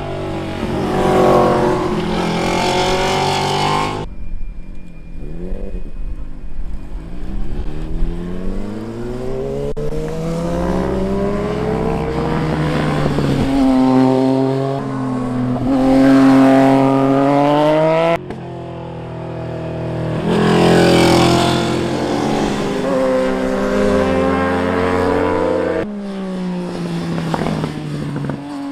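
Street motorcycles passing on a canyon road, one after another. Their engines rev up with rising pitch and drop in pitch as each goes by. The sound cuts off suddenly three times between passes.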